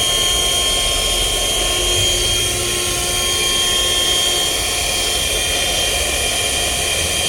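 Vacuum cleaner running steadily: a high-pitched whine over a rushing noise.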